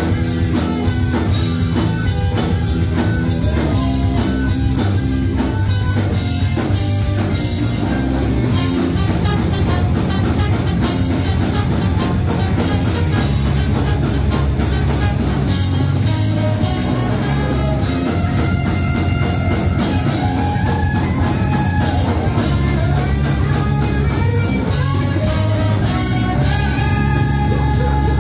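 A rock band playing live, instrumental with no singing: guitar, bass and drum kit, with a melodic guitar line in the second half.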